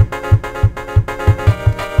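Sampled disco loop played back pitched down through an SP-1200 emulation: a steady kick-drum beat under sustained keyboard chords.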